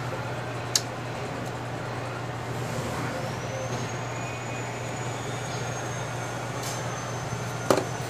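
Hot air rework station blowing steadily while heating solder paste under a new capacitor on the tablet's board, with two light clicks and a faint high whistle coming in about three seconds in.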